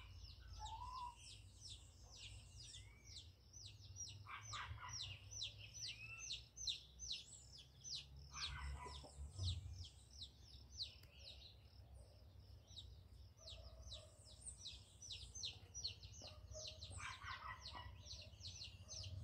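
Forest birds calling: a fast, even run of short high chirps that keeps going throughout, with a few lower calls now and then.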